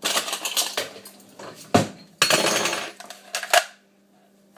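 A whisk beating cake batter in a mixing bowl: rapid clinking and scraping against the bowl, with a couple of sharper knocks.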